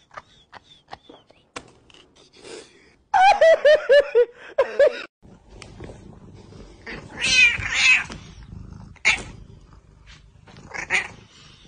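Cats meowing. A quick run of about eight short meows, each falling in pitch, comes about three seconds in, followed by a longer, louder, rougher call around seven seconds in and a couple of short calls near the end. A few small sharp clicks sound before the meowing starts.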